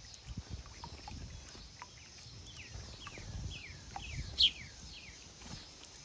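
A small bird calling: a quick run of downward-sliding chirps over a couple of seconds, one louder and higher about four seconds in, over faint low rumbling.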